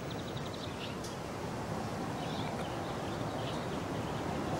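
Steady outdoor background hiss with a few faint bird chirps, the clearest a quick little trill just after the start.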